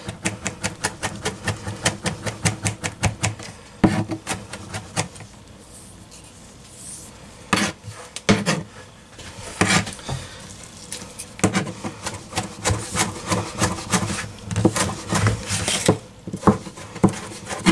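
A kitchen knife chopping capers on a plastic cutting board: rapid taps of the blade against the board, stopping for a few seconds in the middle and then starting again.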